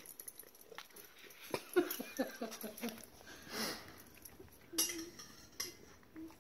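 A cat chewing a piece of raw broccoli, with small crunching clicks, and a few short low animal noises about two seconds in.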